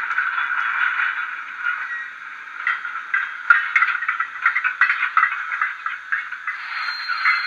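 Digital steam-locomotive sound from a LokSound 5 micro DCC decoder in a Bachmann Thomas the Tank Engine model, played through the model's small speaker as it runs slowly hauling trucks. It is a continuous mechanical running sound, with a run of quick rattling clanks in the middle and a faint steady high tone near the end.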